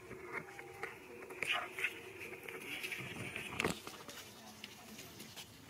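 Young macaques scampering and tussling on dry leaf litter: light pattering and rustling with scattered clicks, and one sharp knock a little past halfway through.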